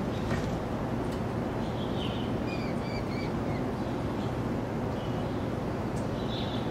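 Steady low rumble of city background noise, with a quick run of about four short high chirps in the middle and a few fainter high notes near the end.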